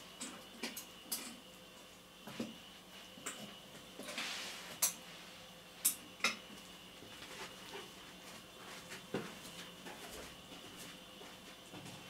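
Cat eating chunks of wet food from a plate: irregular wet chewing and smacking clicks, with a few sharper clicks about five and six seconds in.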